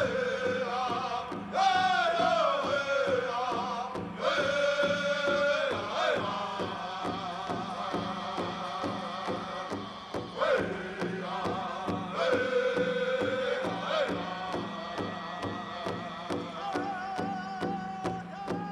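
Pow wow drum group: several singers chanting high, wavering song phrases over a large drum struck in a steady, even beat.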